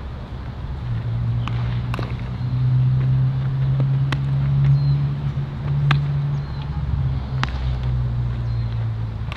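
A steady low engine hum that swells a little in the middle, over which come five or six sharp pops a second or two apart: baseballs smacking into leather gloves.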